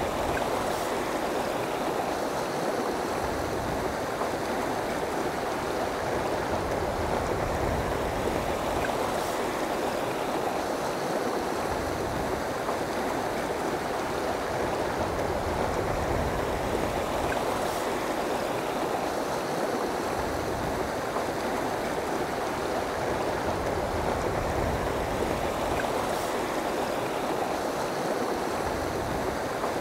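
River water rushing steadily over rocks and through riffles, an even, unbroken noise.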